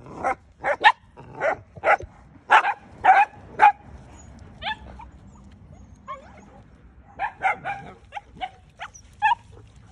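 Belgian Malinois puppies barking in play: a run of short, high barks about twice a second, a lull with a couple of yips, then another quick flurry of barks near the end.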